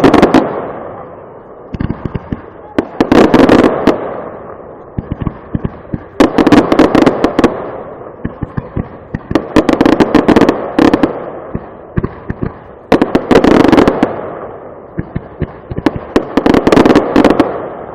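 Fireworks display going off in salvos about every three seconds, six in all, each a few sharp bangs running into a dense crackle that fades away.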